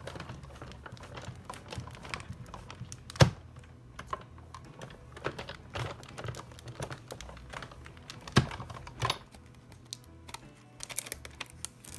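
Hand-cranked die-cutting machine being turned, with a plate sandwich holding a metal die and acetate sheet passing through the rollers: irregular clicking and knocking, with two loud sharp knocks about three and eight seconds in. Near the end come lighter clicks as the die and acetate are handled.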